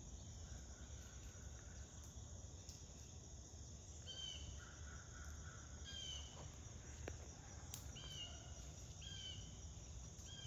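Faint outdoor ambience: a bird repeating short, falling chirps every second or two, with some lower pulsed notes, over a steady low rumble.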